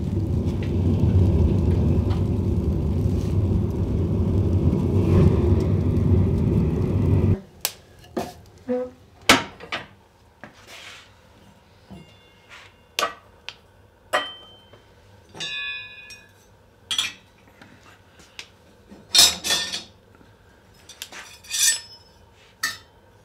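A wood fire burning in a cast-iron wood stove makes a loud, steady, low rumble that cuts off about seven seconds in. Then come scattered metallic clinks and knocks, some ringing briefly: welded steel clamp hangers being set upright on top of the stove to heat.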